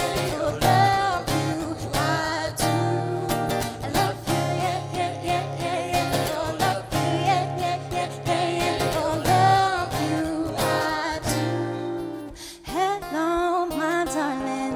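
Live vocals over an acoustic guitar. A sung melody bends and slides over the guitar's chords, with a brief lull about twelve seconds in before the voice comes back.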